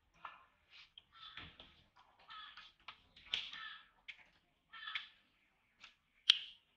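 Baby macaque suckling at its mother's nipple: a run of short wet sucking clicks and smacks, mixed with short harsh calls, and one sharp click near the end the loudest.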